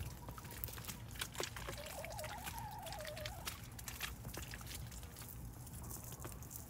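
Ducks dabbling and chickens pecking in a tub of water and floating water hyacinth: a busy run of small wet clicks and splashes. A wavering bird call comes in about two seconds in and lasts a second or so.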